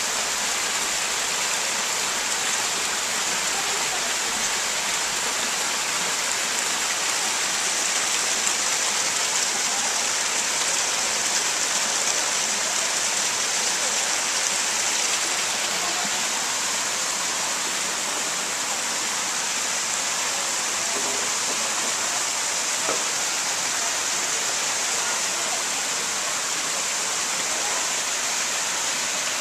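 Steady rushing of falling water from a small waterfall, an even hiss that holds at one level without a break.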